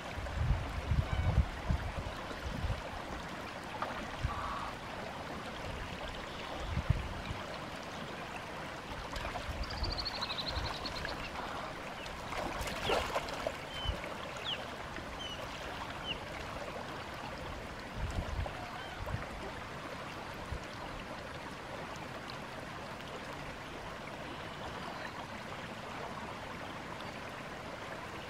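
Water flowing and gurgling steadily through a shallow channel below a water control structure. A few low bumps break in near the start and later, and a brief louder burst comes about 13 seconds in.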